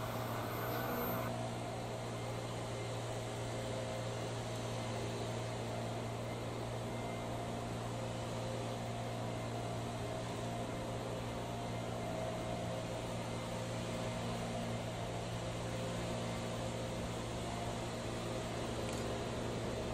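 A distant engine running steadily, a low even hum with a few steady tones that neither rises nor falls.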